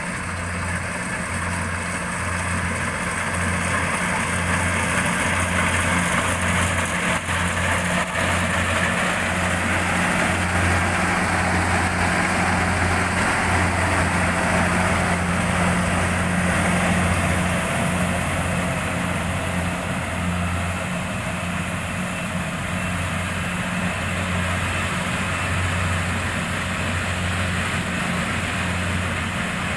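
Rice combine harvester running: a steady engine hum under a dense mechanical noise.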